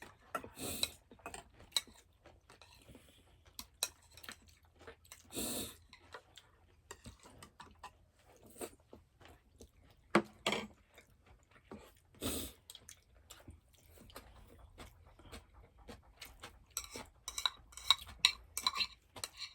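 People eating a meal at a table: scattered clicks of utensils against dishes with some chewing, and a quicker run of clinks near the end.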